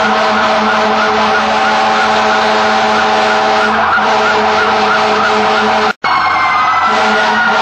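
Fire truck sirens sounding over running engines: a fast yelp warbling about three times a second, then, after a brief dropout about six seconds in, a slower rising and falling wail.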